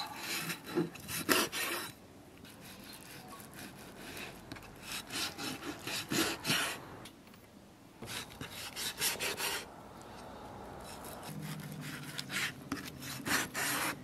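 A steel cleaver slicing a raw snakehead fish fillet into thin slices, scraping against a wooden chopping board. It comes in several runs of quick scraping strokes with quieter pauses between.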